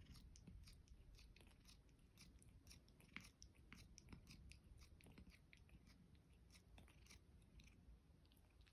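Faint, quick clicks and smacks of a Persian cat's mouth and tongue as she chews with nothing in her mouth, several a second, thinning out near the end.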